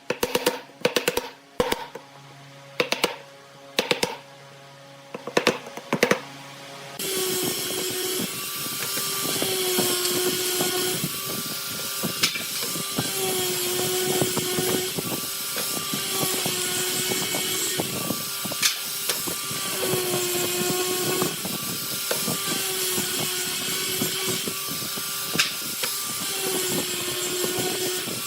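About a dozen sharp knocks over the first seven seconds, then a power tool starts running, its pitch dipping and recovering about every two seconds.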